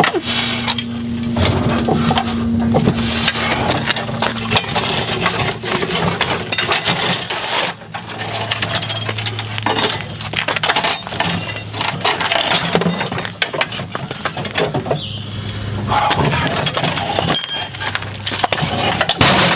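Old walk-behind lawn mower being heaved and dragged along, its metal frame and wheels clattering, scraping and clinking without a break.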